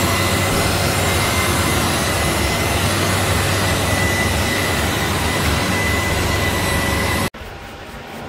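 Electric rotary polisher with a foam pad running steadily on windshield glass, a constant motor whine over a rushing noise, polishing dust, salt-water deposits and light scratches off the glass. It stops abruptly about seven seconds in.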